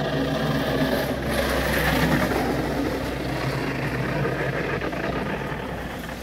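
Steady engine and road noise of a vehicle being driven.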